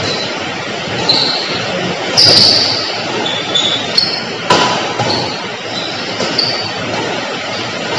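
Badminton rally in a large sports hall: several sharp racket strikes on the shuttlecock and short high squeaks of shoes on the court. Under them runs a steady hiss of rain on the hall roof.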